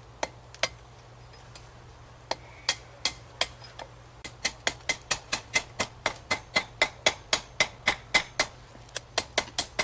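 Hammer blows on a hot rivet, peening it over to join the pieces of a forged rebar throwing star. A few spaced strikes come first, then a steady run of ringing metallic blows at about three a second from about four seconds in.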